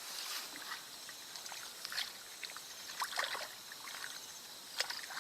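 Water sloshing with a few small splashes: about two seconds in, around three seconds, and a sharper one near the end.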